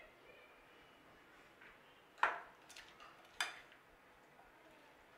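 Metal ladle clinking against glass while spooning pickle from a glass bowl into a glass jar. There is a sharp clink a little over two seconds in, a fainter one just after, and another about a second after the first.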